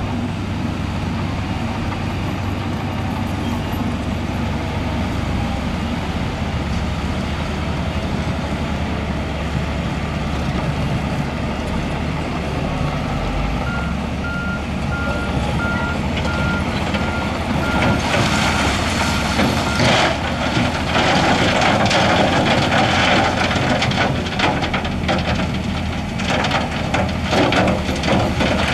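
Heavy diesel earthmoving machinery running steadily, with a reversing alarm beeping repeatedly for several seconds in the middle. From about two-thirds of the way in, loud crunching and scraping of gravel and rock being pushed takes over.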